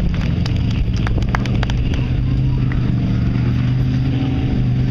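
Off-road buggy's engine running at fairly steady revs, with scattered sharp clicks in the first couple of seconds.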